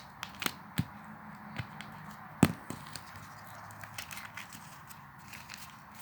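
Folded paper being handled and pressed into shape, with scattered light clicks and crackles and one sharper snap about two and a half seconds in.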